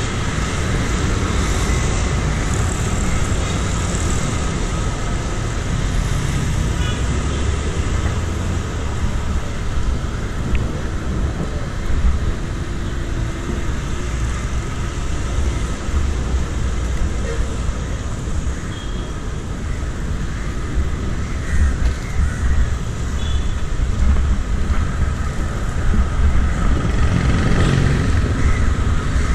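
Steady road traffic heard while riding a bicycle through city streets, under a heavy, uneven low rumble typical of wind buffeting the microphone at riding speed.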